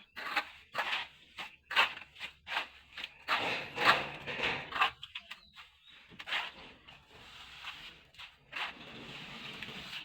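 Plastering trowel scraping and spreading plaster in repeated strokes, about two a second, with longer continuous scrapes a little after three seconds and again near the end.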